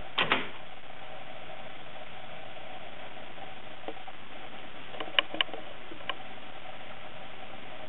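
AKAI GX-F66R cassette deck transport running with a steady hiss and a faint steady hum. Sharp mechanical clicks come from the mechanism near the start, twice about five seconds in, and once more soon after.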